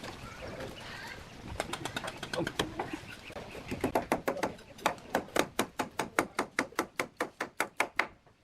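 A quick, even series of sharp taps, about four to five a second, which stops suddenly near the end.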